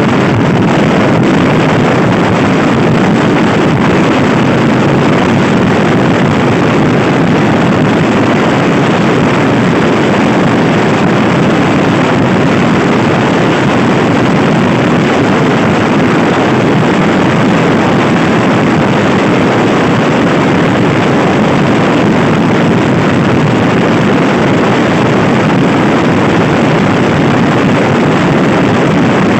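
Loud, steady wind noise rushing over the microphone of a Honda Scoopy i scooter riding at speed, with the scooter's engine running under it.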